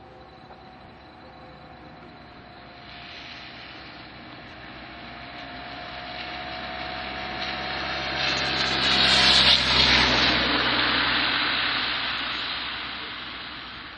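A motor vehicle passing by: its engine hum and road noise swell slowly over several seconds, are loudest about two-thirds of the way through, then fade away.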